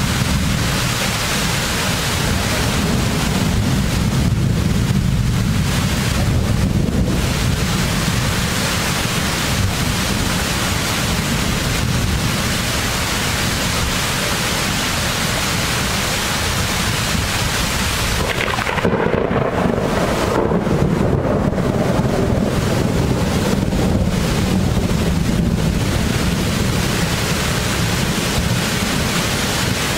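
Thunderstorm: a steady rush of heavy rain and wind buffeting the microphone, with thunder rolling in about two-thirds of the way through.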